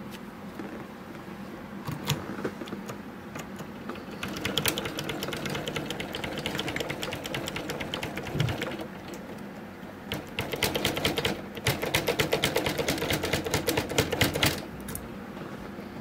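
A key blank on an impressioning handle being rocked and twisted in the keyway of a Master Lock No 1 padlock, giving two long runs of fast metallic clicking and rasping, the second louder. The key binds against the pin stack so the pins press marks into the blank.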